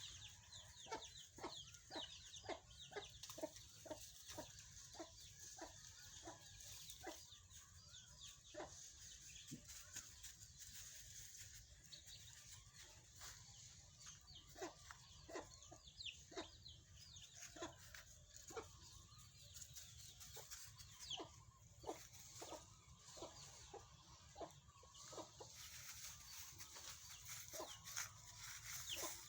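Chickens clucking faintly, a quick run of short clucks in the first several seconds, then scattered clucks with gaps between them.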